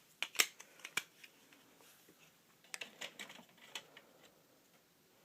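Scattered light clicks and taps of metal Zippo lighters being handled and set down: two in the first second, then a cluster about three seconds in.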